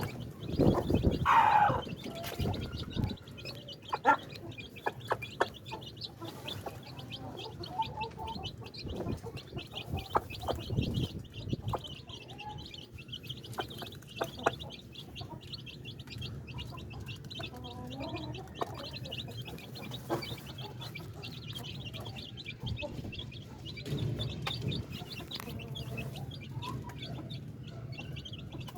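Thai chickens clucking, with one loud call falling in pitch about a second in and shorter scattered calls after.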